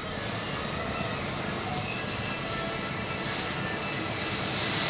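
Steady engine rumble and hiss of passing traffic, growing louder near the end.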